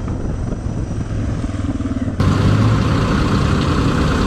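Motor vehicle engine running while driving, with road noise; about two seconds in it cuts abruptly to a louder stretch of the same kind of driving sound.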